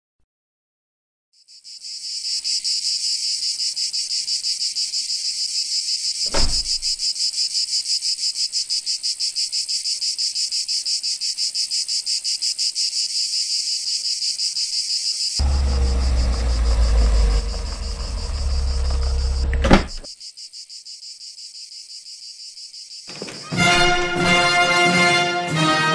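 Cicadas shrilling in a dense, fast-pulsing chorus, with a single thud a few seconds in and a deep rumble in the second half that ends in a sharp hit. Orchestral brass music comes in near the end.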